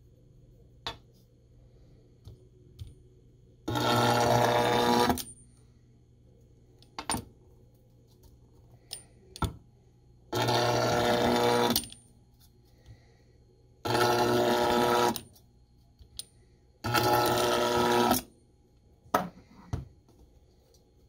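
AC resistance welder firing through a copper roll-spot wheel electrode, seam-welding stainless steel mesh onto a stainless sheet: four buzzing bursts of about a second and a half each, one per seam. Short clicks and knocks between the bursts.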